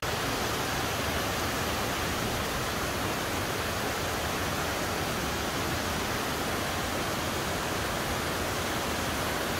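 Steady, unbroken rush of the 81-metre Grojogan Sewu waterfall plunging onto rocks, heard from close by, with no change in level throughout.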